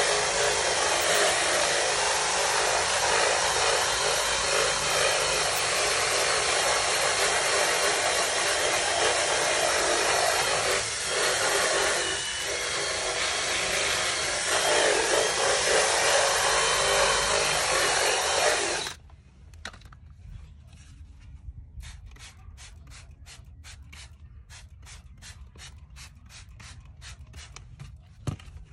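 Cordless drill spinning a scrub brush against a vinyl door panel: a steady whirring scrub that cuts off suddenly about two-thirds of the way in. After it, quieter, even ticks come about three times a second.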